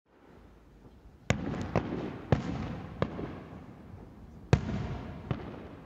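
Aerial fireworks bursting: a string of sharp bangs, about seven in all, each trailing off in a rumbling echo, the loudest about four and a half seconds in.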